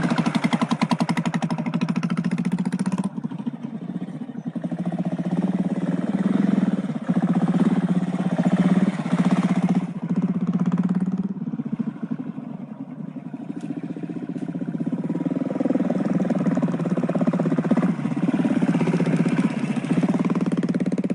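Royal Enfield Bullet motorcycle's single-cylinder engine running at low revs, a rapid, even exhaust beat. The sound changes abruptly a few times, with the loudness rising and falling.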